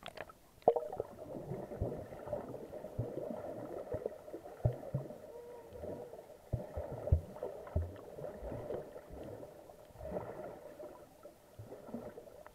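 Muffled underwater sound picked up through an action camera's waterproof case: water sloshing and gurgling around the housing, with a steady hum and frequent irregular knocks.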